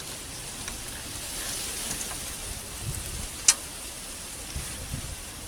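Steady hiss of rain, with one sharp tick about three and a half seconds in.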